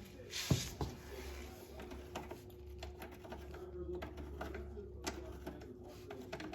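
Scattered light clicks and taps of hand work on the ATV's rear brake cable adjuster and lever, with a couple of louder knocks about half a second in and one about five seconds in.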